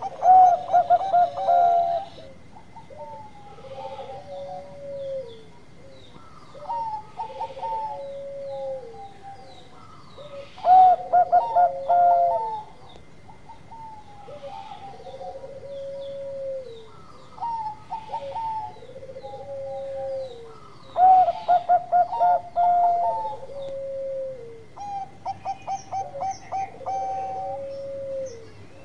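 Zebra dove (Bangkok-type perkutut) cooing: rolling, trilled coo phrases repeat throughout. The loudest phrases come about every ten seconds, with softer coos between them.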